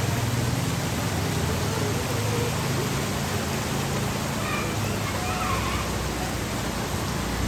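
Heavy rain falling onto a flooded street, a steady hiss, with a low hum underneath.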